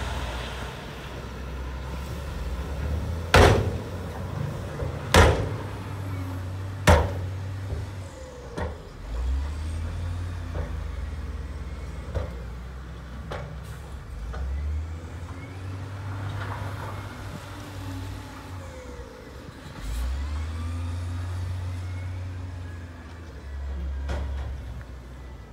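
Heavy earthmoving machine's diesel engine running, its sound swelling and dropping in spells as the load changes. Three loud knocks come about three, five and seven seconds in, with a few lighter clicks after.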